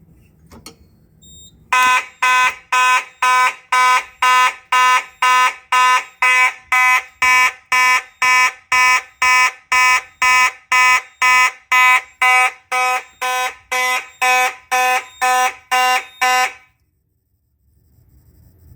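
Simplex fire alarm horn set off by a key activation of the pull station, sounding in even, very loud pulses about twice a second. It starts about two seconds in and cuts off suddenly near the end.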